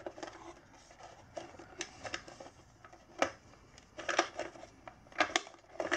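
Scattered light clicks, taps and rustles of hands working a wire through a scooter's plastic tub and along its frame, with a sharper click about halfway through and a few more near the end.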